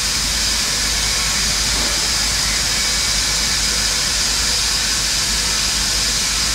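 A steady, even hiss that runs on without a break, strongest in the upper range.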